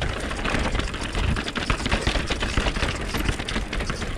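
Mountain e-bike rattling down a rocky singletrack: tyres rolling over stone slabs, with rapid clicking and clatter from the bike. Wind rumbles on the handlebar-mounted camera's microphone.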